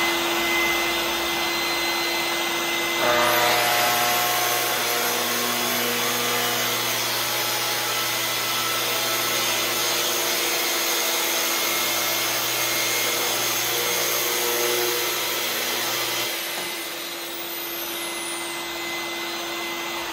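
Shop vac running steadily while dust-extracting through a hose from a Festool TS75 plunge-cut track saw. About three seconds in, the saw starts and cuts a board, making the sound louder. The saw stops a few seconds before the end, and the vacuum runs on alone.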